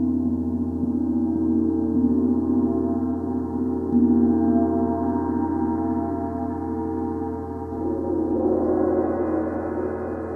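Paiste 28-inch Symphonic gong struck softly with a felt mallet a few times, ringing with many overlapping sustained tones. About eight seconds in, a vintage Sonor cymbal struck with the mallet joins, adding a brighter shimmering wash over the gong.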